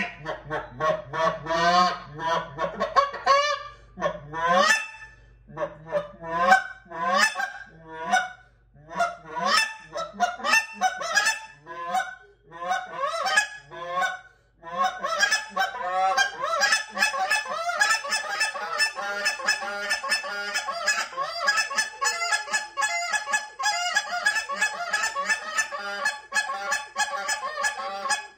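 GK Overture short reed goose call blown by hand, sounding goose honks. The first half is separate honks with short gaps between them; from about halfway the notes come in a fast, unbroken string.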